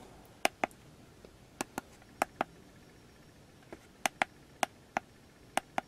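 Keypad buttons on a YAWOA YA-101 OBDII scan tool clicking as they are pressed to step through its menus: about seven presses, most heard as a quick double click.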